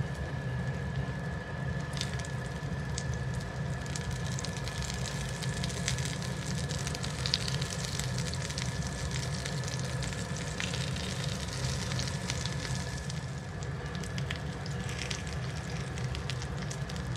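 Breadcrumb-coated potato cutlets shallow-frying in hot oil in a cast-iron skillet: steady sizzling, dotted with small crackles and pops, over a steady low hum.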